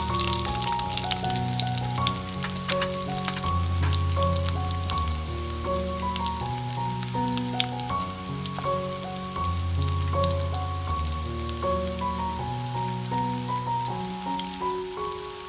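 Diced red onions and curry leaves sizzling and crackling in hot oil in a frying pan, the crackle densest in the first few seconds. Background music with steady notes plays underneath.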